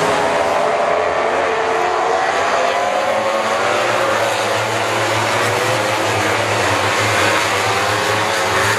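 A pack of MotoGP racing motorcycles' four-cylinder engines at high revs as the bikes pass through a corner. Several engine notes overlap, each rising and falling in pitch.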